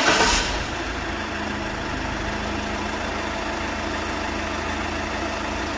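Iveco Daily van's engine just after starting by remote start: louder for the first half second, then settling into a steady idle.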